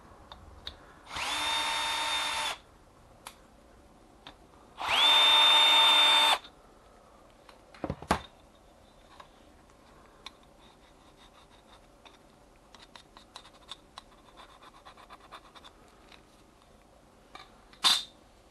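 A cordless drill-driver runs twice in spurts of about a second and a half, the second louder, each a steady whine that rises briefly as the motor spins up: it is backing screws out of a copier fuser unit. Then come a sharp clatter of metal parts and scattered light clicks of handling, with another clatter near the end.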